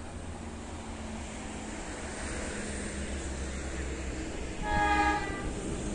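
Diesel locomotive of a passenger train approaching slowly, its low engine rumble growing gradually louder. One short horn blast sounds about three-quarters of the way through.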